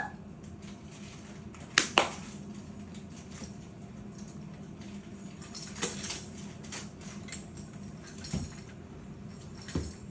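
Hard plastic baby-gym toys clacking and rattling as they are grabbed and mouthed: a pair of sharp clacks about two seconds in, then scattered lighter knocks, over a faint steady hum.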